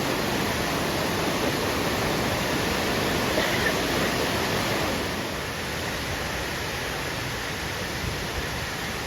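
Steady rush of water from a waterfall, a little quieter over the second half.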